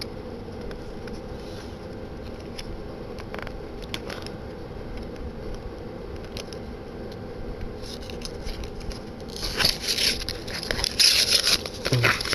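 Handling noise: scattered faint clicks over a steady low hum, then louder irregular scraping and crackling of plastic being handled, from about nine seconds in.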